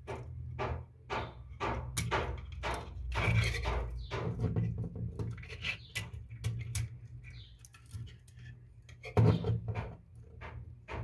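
Irregular small metal clicks, taps and scrapes of an antique Veglia alarm clock's movement parts and tools being handled as its stiff mainspring is forced into place, with a louder knock about nine seconds in.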